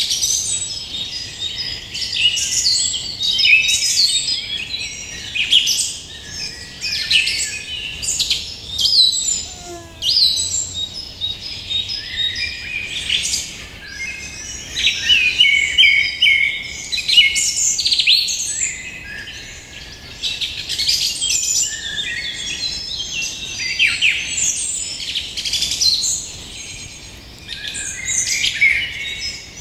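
A chorus of many small birds chirping and singing, with quick overlapping calls and short down-slurred whistles.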